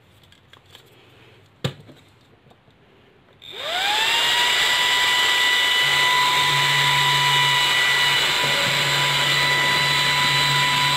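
A 12-volt high-speed server cooling fan, rated at 1.2 A, switched on after a single click: about three and a half seconds in it spins up within half a second, its whine rising to a steady high pitch over loud rushing air, and then runs at full speed.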